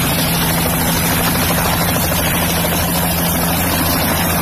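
Bell 206 JetRanger turbine helicopter running at steady power, its two-bladed main rotor turning as it lifts off the pad. The engine and rotor hold a constant level, with two steady low tones under a broad rushing noise.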